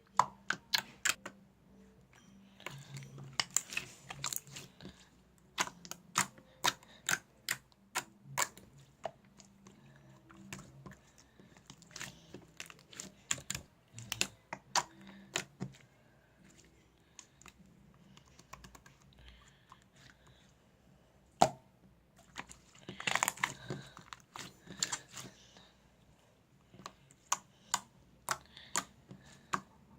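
Slime being squeezed and poked by hand, giving irregular sharp clicks and pops, some in quick clusters, as air pockets burst.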